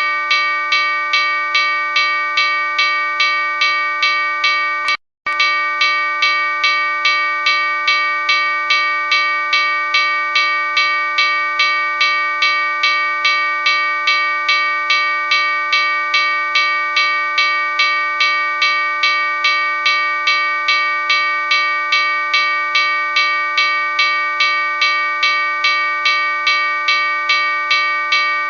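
Locomotive bell ringing continuously, struck evenly about one and a half times a second so the ring never dies away. The sound cuts out for a moment about five seconds in.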